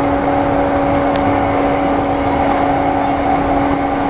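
Interior of a JR East E235-1000 series electric train moving off slowly: a steady electrical hum holding one pitch over a low running rumble.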